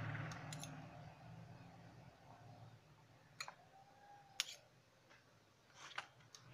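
Background music fading out in the first second or two, then a few faint clicks of metal spoons against a glass dish as cream cheese is mixed into shredded cheese.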